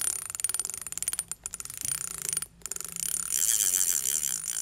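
Logo intro sound effect: a dense run of fast crackling ticks over a high hiss with a thin steady whistle, breaking off for a moment about halfway through and cutting off sharply near the end.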